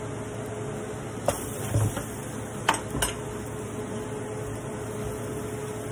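Metal spoon stirring in a steel pot of lentils, knocking against the pot with a few sharp clinks between about one and three seconds in, over a steady hum.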